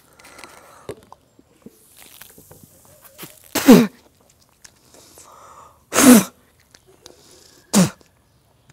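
A man spluttering and choking after trying to swallow a mouthful of dry ground cinnamon: three explosive bursts of coughing or sneezing, with rough breathing between them.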